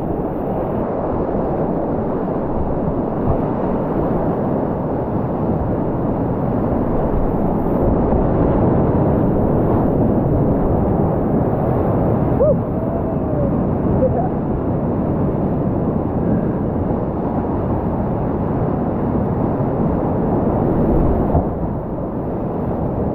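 Whitewater rapids of the South Platte River running high at 585 cfs, a heavy, steady rush of churning water heard from a kayak in the middle of the rapid, mostly low-pitched.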